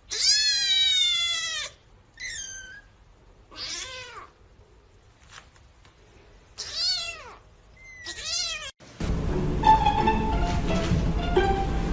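A domestic cat meowing five times. The first call is long and loud, the rest are shorter, and each falls in pitch. Music with plucked strings starts about three-quarters of the way in.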